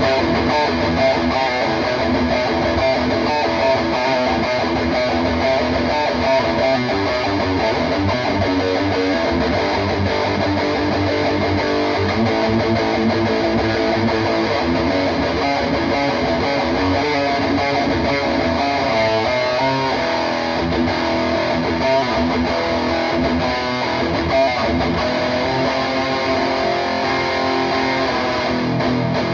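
Distorted electric guitar playing continuous riffs and chords. It is a PRS McCarty 594 played through a PRS Archon 50 valve amp head with an overdrive pedal in front, into a cabinet loaded with Celestion Vintage 30 speakers.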